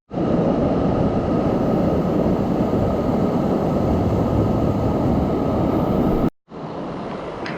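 Steady roar of a waterfall close by, heavy in the low end. It cuts off sharply about six seconds in and comes back softer.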